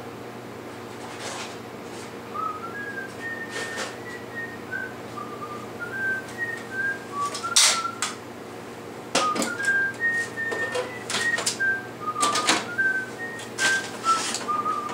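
A person whistling a tune of short notes that step up and down, with clicks and knocks of things being handled; the loudest is a sharp click a little past halfway.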